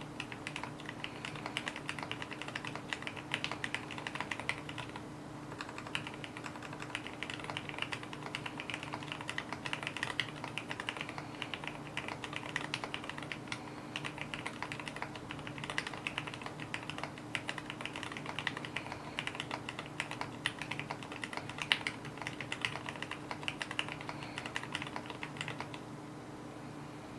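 Steady fast typing on a mechanical keyboard, a dense run of key clicks and thocks over a faint steady hum; the typing stops shortly before the end.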